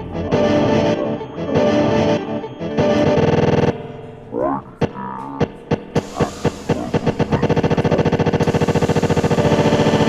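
Electric guitar played through effects with distortion, in a droning, layered texture. About halfway through it drops back and turns into sharp repeated pulses that speed up until they become a fast, even throbbing pulse.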